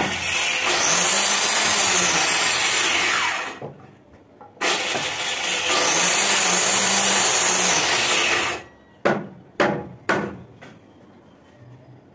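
Handheld electric planer run over a wooden plank in two passes of three to four seconds each, the motor spinning up and winding down with each pass. A few sharp knocks of wood follow.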